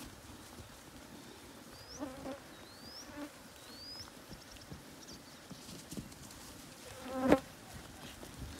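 A mob of wether lambs moving past on dirt and grass, hooves shuffling and pattering, with a few short bleats and one louder bleat about seven seconds in. Flies buzz throughout.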